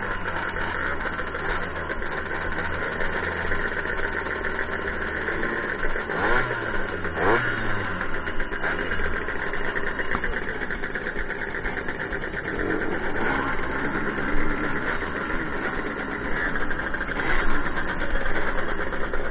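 Small two-stroke Jawa moped engine idling steadily, with a brief rise and fall in engine pitch about six to eight seconds in.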